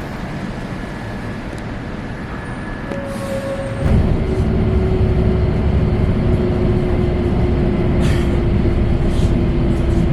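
City bus engine running, with a low rumble that jumps sharply in loudness about four seconds in and stays loud, with a steady droning tone over it.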